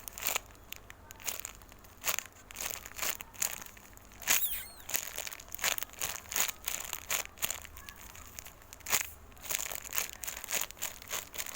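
Irregular crinkling and crackling of thin plastic being handled, likely the bag around a squishy toy as it is turned and squeezed in the hands.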